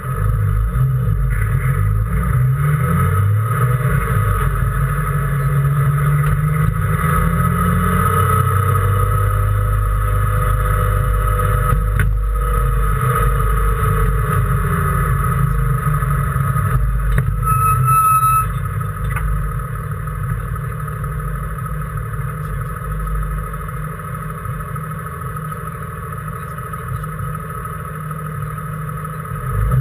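Race car engine heard from inside the car on track. It pulls hard with rising pitch over the first several seconds and holds high revs. About 18 seconds in it backs off to lower, quieter running, then picks up again at the very end.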